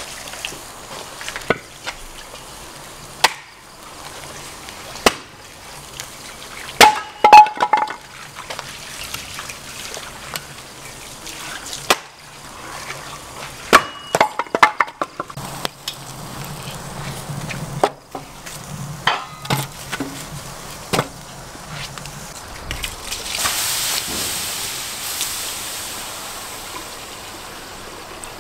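Axe blows splitting firewood on a chopping block: a series of sharp, irregular strikes, some with a short ringing clink. Near the end there is a steady hiss lasting a few seconds.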